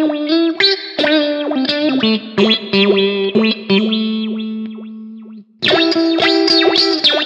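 Electric guitar played clean through an All Pedal Macrodose envelope filter (auto-wah) pedal, a run of picked notes. About four seconds in a note is held and fades away, there is a brief break, and the picking resumes about five and a half seconds in.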